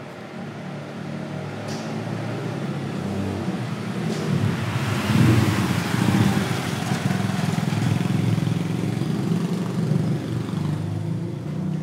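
A motor vehicle, a motorbike or car, drives by on the street: its engine and tyre noise grow louder, peak about halfway through and stay near that level. A couple of faint sharp ticks sound in the first few seconds.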